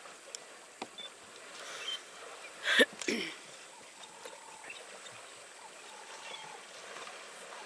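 African elephants wading and splashing in a waterhole, with a steady wash of water noise and a sudden loud burst of sound about three seconds in.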